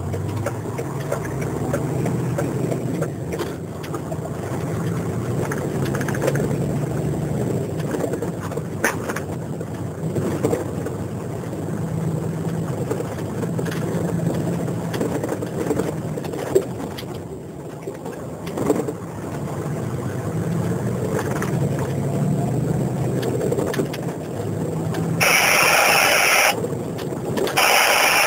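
Driving noise heard from inside a moving vehicle: a steady low engine hum with tyre and road noise. Near the end a louder rushing hiss comes in.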